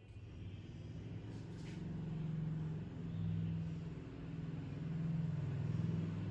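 Low, steady motor hum that grows louder over the first couple of seconds, then wavers a little in level.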